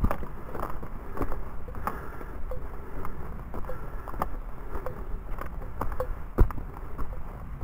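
Footsteps of a hiker walking on a dirt and leaf-litter forest trail, a soft knock about every half second to two-thirds of a second, over a low rumble on the handheld camera's microphone. One louder thump comes near the end.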